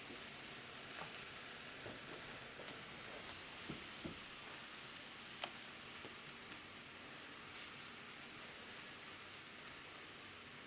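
Faint steady sizzle of flour-coated stew meat in a non-stick fry pan, with a few light clicks.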